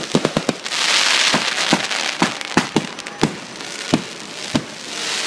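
Fireworks going off: a quick string of sharp bangs, a loud rushing hiss, then single bangs at uneven intervals, with another hiss near the end.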